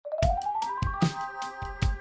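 Electronic intro music: a synth tone slides upward over the first second above held chords, over a beat of low kick-drum hits and crisp percussion.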